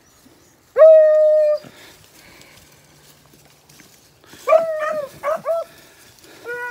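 Beagle hounds baying while trailing a rabbit by scent: one long drawn-out bawl about a second in, then a few shorter, choppier barks near the end.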